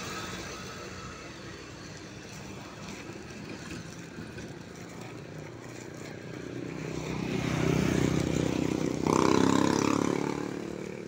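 Street traffic: motor vehicle engines running steadily, growing louder as a vehicle passes close about seven to ten seconds in.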